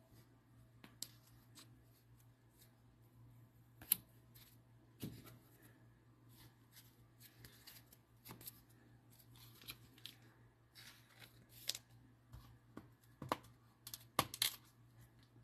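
Faint rustling, tapping and clicking of trading cards and their packaging being handled, with sharper clicks about four seconds in and near the end, over a steady low hum.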